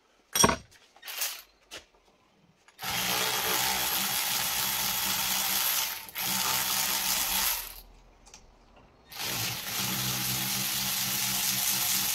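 Cordless electric ratchet spinning out the front brake caliper's 14 mm bolts. A few short clicks of the tool on the bolt come first. Then the motor runs steadily for about five seconds, pauses, and runs again for about three seconds near the end.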